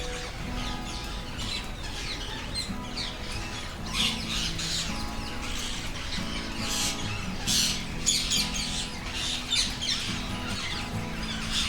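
Background music with held notes, over a flock of parrots squawking and screeching in short, harsh, frequent calls.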